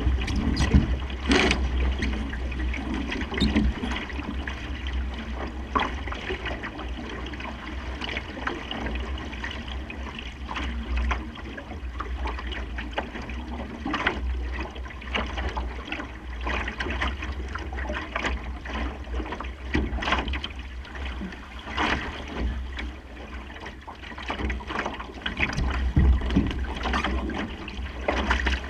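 Water splashing and slapping irregularly against a Supernova sailing dinghy's hull as it sails, over a steady low rumble of wind on the microphone.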